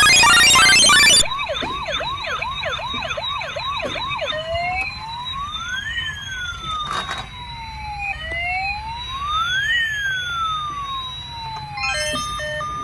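Toy ambulance's electronic siren: a fast yelp of about three up-and-down sweeps a second, changing after about three seconds to a slow wail that rises and falls. It starts after a short stretch of loud music, and a little electronic tune begins near the end.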